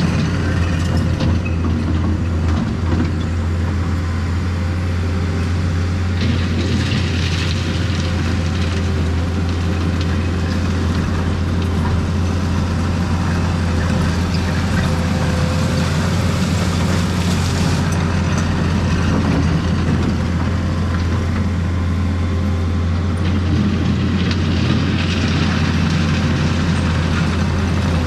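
Heavy diesel engine of earthmoving equipment running at a steady speed, a constant low drone.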